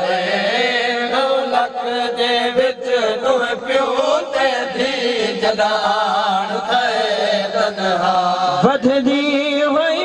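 A noha, a Shia mourning lament, chanted by a male reciter in long held notes that waver up and down.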